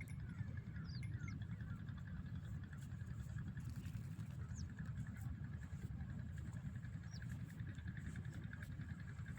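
Open-air riverside ambience: a steady low rumble with a few short, high bird chirps scattered through it.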